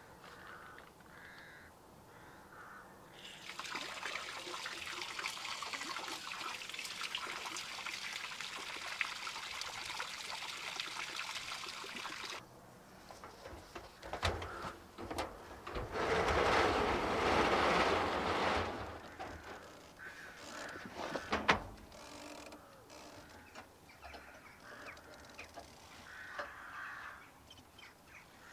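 Water hissing steadily out of a garden hose for about nine seconds, cutting off suddenly. Then scattered knocks and clatter as the hose is handled, with a louder rushing noise for a couple of seconds partway through.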